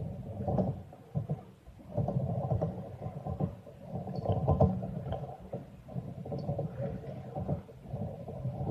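Kick scooter wheels rolling over concrete skatepark ramps, a rumble that swells and fades as riders pass close and move away, with a few sharp clacks of scooter decks and wheels hitting the concrete.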